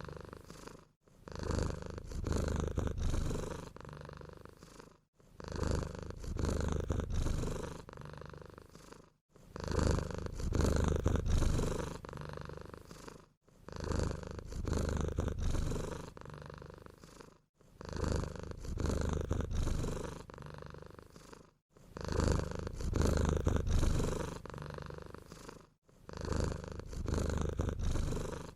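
Sleeping domestic cat snoring: a low rumble on each breath, about one breath every four seconds, each loud at first and trailing off, with a brief silent pause between breaths.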